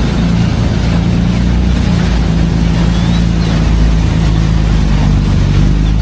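Loud, steady motor drone with a hiss over it, cutting off suddenly at the very end.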